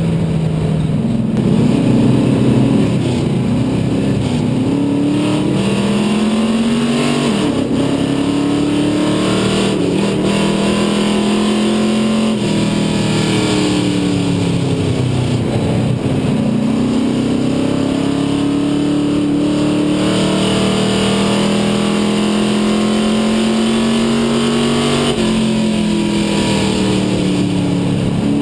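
Race car engine heard from inside the cockpit of a Dare Stock car at racing speed. Its pitch climbs steadily for several seconds, then drops, again and again as the car accelerates and lifts off.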